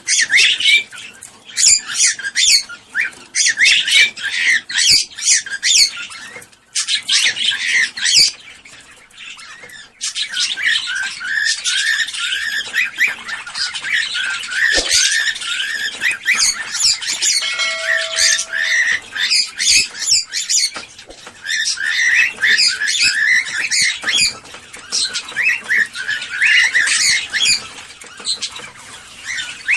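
Cockatiels chattering and squawking, many rapid overlapping calls with hardly a pause, the call used to stimulate cockatiels to breed. The calls thin out for a few seconds about a quarter of the way in, and a short steady tone sounds a little past halfway.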